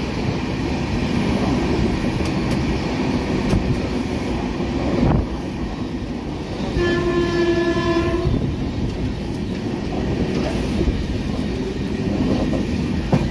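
Passenger train running along the track, heard from a coach as a steady rumble with clickety-clack. About seven seconds in, one horn blast lasts about a second and a half.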